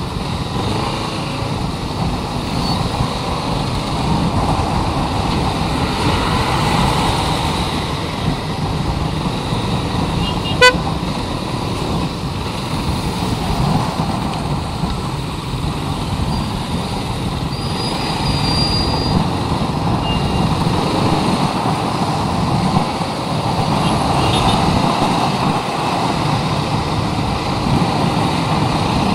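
Motorcycle riding on the road, its engine running under steady wind and road noise on a chest-mounted action camera. A short horn beep sounds about ten seconds in.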